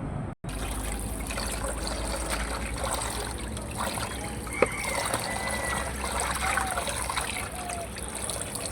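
Water trickling steadily, with a sharp click about halfway through.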